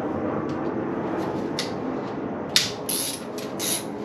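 Hand tool and socket clicking and clinking on an LS engine's rocker arm bolts as they are loosened, a few short sharp metallic clicks, the loudest about two and a half seconds in, over steady shop background noise.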